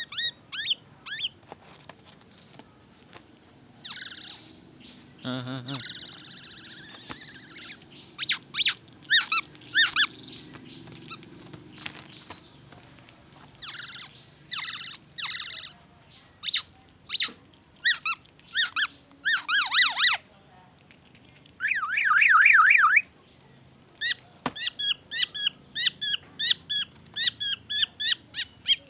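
Black-naped oriole singing a varied string of short squeaky whistles and chirps, including mimicked white-rumped shama phrases. A fast warbling trill comes a little past two-thirds in, then a quick run of repeated short notes near the end.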